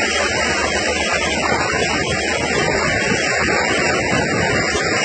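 A car driving along a flooded street in rain: a steady rush of water spray, rain and road noise, heard from inside the car.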